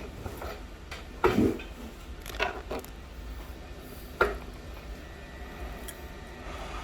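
A few sharp clicks and taps of a hand tool chipping cracked back glass off an iPhone 11, over a low steady hum.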